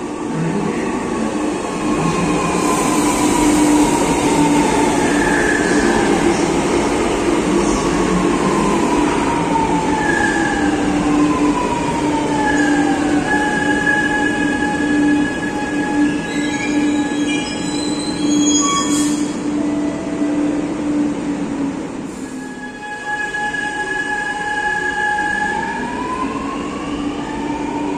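Chennai Metro train pulling into the platform, its motor whine falling in pitch as it slows to a stop. Near the end the whine climbs again as it pulls away.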